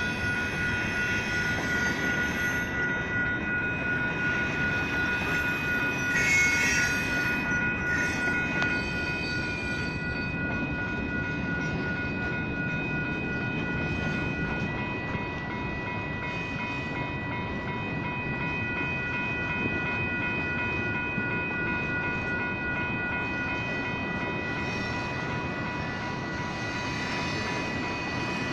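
A BNSF manifest freight train's cars rolling steadily through a grade crossing with a continuous rumble and wheel-on-rail noise, while the crossing signals' electronic bells ring in steady tones. A brief high squeal rises over the train noise about six seconds in.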